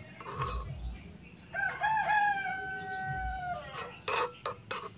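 A rooster crows once, one long call starting about a second and a half in and lasting about two seconds, wavering at first and dropping at the end. Small metal tongs clink sharply against the wok and bowl near the start and several times near the end.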